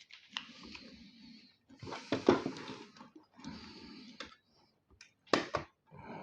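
Hand-tool and metal handling noise while a PC power supply is taken apart: several stretches of scraping and rustling, then a few sharp clicks a little past five seconds in.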